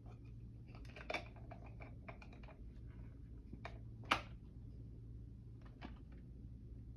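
Scattered small plastic clicks and taps from handling a talking analog alarm clock. There is a quick run of clicks about a second in, then a few single ones, the loudest just after four seconds.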